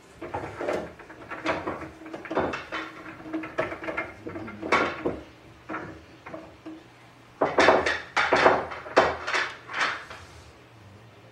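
Pool balls clacking against one another, a quick series of hard clicks in bunches, busiest about seven to ten seconds in.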